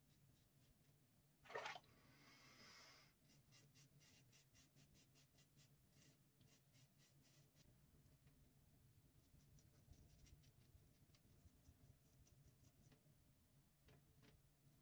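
Faint scraping of a Rockwell 6C safety razor with a Personna Super Blue blade cutting through about a week's stubble under lather: quick runs of short crisp rasps, several a second. One louder scrape comes about one and a half seconds in, followed by a brief hiss.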